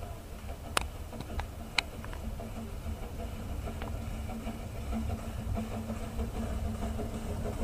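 Narrow-gauge steam locomotive drawing slowly into a station: a low steady rumble that grows a little louder as it nears, with a few sharp clicks in the first couple of seconds.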